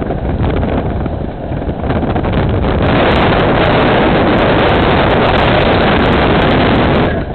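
Strong blizzard wind rushing and buffeting against the microphone inside a moving car, over the car's road noise. It grows much louder about three seconds in and cuts off abruptly near the end.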